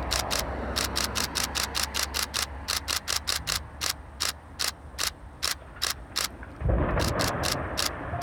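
Distant rumble of the demolition blast dying away, then about six and a half seconds in a loud low rumble as the concrete chimney crashes to the ground. A sharp clicking, about three clicks a second, runs alongside.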